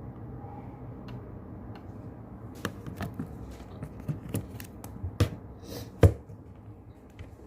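Keyboard keys clicking in a short, irregular run of typing, the loudest click near the end, over a steady low hiss of brown noise.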